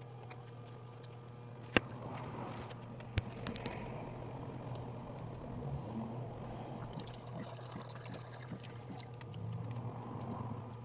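Eating sounds of fried chicken and rice eaten by hand: scattered small clicks and crackles of chewing and handling food, with two sharp taps about two and three seconds in, over a steady low hum.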